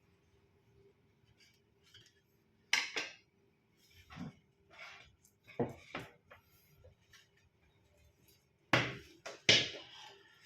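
Irregular metal knocks and clanks from a gas stove burner and its parts being handled and set in place. The loudest come about three seconds in and twice near the end.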